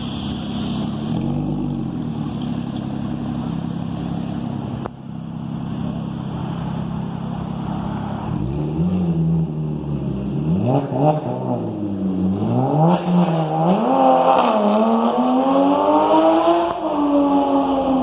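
Porsche engine idling with a small throttle blip about a second and a half in, then revved again and again from about eight seconds in, each rev climbing a little higher until the engine is held at raised revs near the end.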